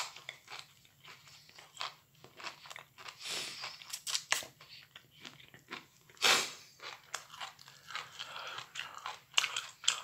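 A person chewing microwaved broccoli close to the microphone: a steady run of small crunches and wet mouth clicks, with a few louder crunches.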